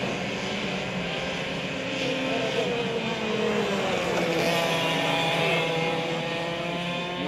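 Several racing karts' two-stroke engines going by together, their notes dropping in pitch about four seconds in and then climbing again as they accelerate.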